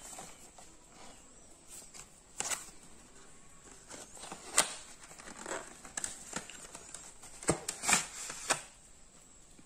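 Cardboard and paper packaging of an SSD being handled and opened: rustling and crinkling, with several sharp clicks and snaps, the loudest about four and a half seconds in and a quick run of them near the end.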